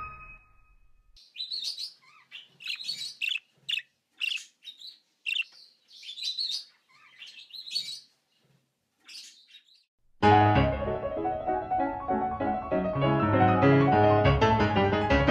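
Birds chirping in short, scattered bursts for several seconds. About ten seconds in, piano music starts abruptly and fills the rest.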